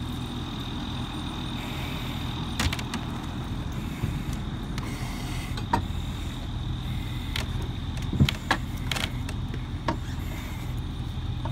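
Scattered sharp knocks and clanks, about eight spread over the stretch, as a Halligan bar is worked into a wooden forcible-entry door prop. Under them runs a steady low mechanical hum with a thin high tone.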